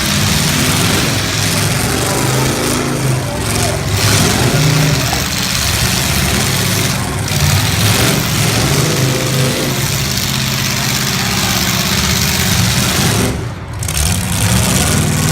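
Full-size demolition derby car engines running and revving unevenly, loud and continuous over a dense background din.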